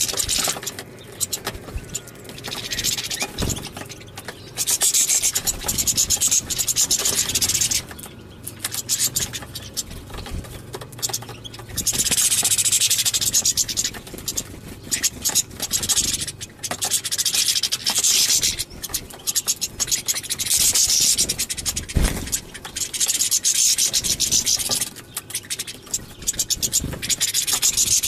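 A flock of European goldfinches and other small finches at close range, twittering in rapid high-pitched bursts a few seconds long with quieter gaps between.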